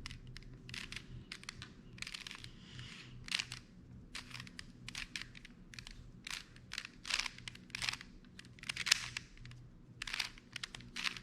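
Plastic Rubik's Cube layers being twisted by hand: a quick, irregular run of clicks and scrapes, several a second, as the final corner-orienting moves are turned to finish the solve.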